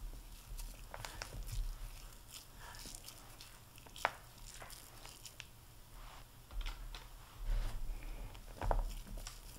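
Hands squeezing and rolling a sticky, crumbly pecan pie ball mixture into balls, giving scattered wet crackles and sticky clicks, with a sharper click about four seconds in.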